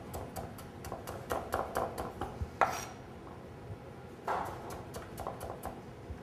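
Chef's knife cutting carrots into julienne strips on a cutting board: a quick run of taps as the blade strikes the board, with a louder knock about two and a half seconds in, a short pause, then another run of taps.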